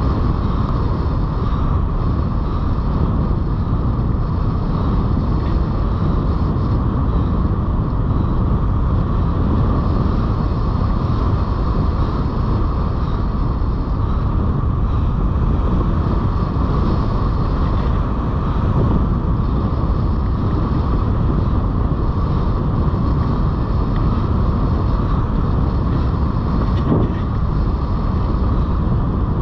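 Steady rush of airflow over the microphone of a hang glider's camera in flight, loud and unbroken, with a steady higher band of tone running through it.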